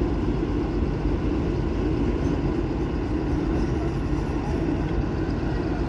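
Engine of heavy road-construction machinery running steadily, a continuous low rumble.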